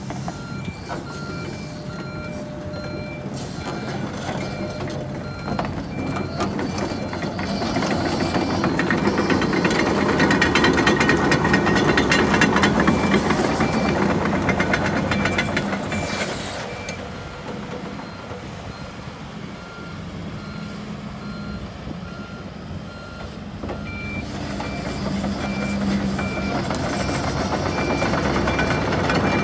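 Kobelco SK140SRLC-3 excavator with its Mitsubishi D04EG diesel running, travelling on its tracks while its alarm beeps steadily, about one to two beeps a second. In the middle the engine grows louder with track clatter, and the beeping stops for several seconds before coming back near the end.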